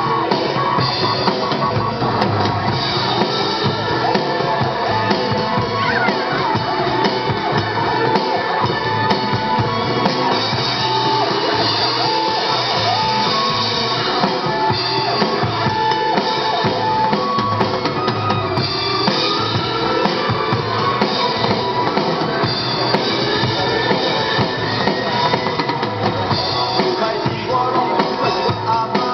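Live rock music played by a band, with a drum kit driving a steady beat under guitar.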